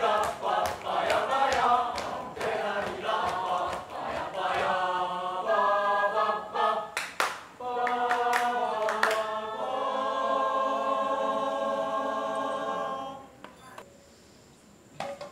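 Mixed youth choir singing a cappella in harmony, with a few sharp percussive hits around the middle. The song ends on a long held chord that cuts off about two seconds before the end, leaving a brief quiet gap.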